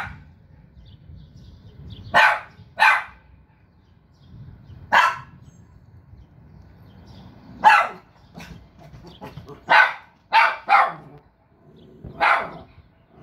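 A dog barking about eight times at uneven intervals, some barks coming in quick pairs or threes.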